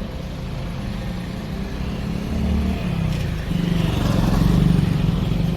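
A motor vehicle's engine running steadily with a low hum, growing louder about three and a half seconds in.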